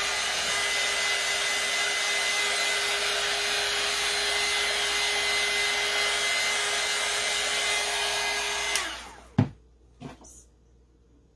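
Handheld craft heat gun running, blowing hot air to dry fresh paint: a steady fan whir with a constant hum, switched off about nine seconds in. A sharp knock and a lighter one follow.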